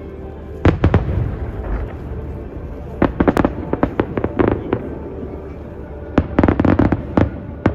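Aerial firework shells bursting in volleys of sharp bangs. There are two bangs about a second in, a rapid string of bangs from about three to four and a half seconds, another quick volley around six to seven seconds, and a last bang near the end.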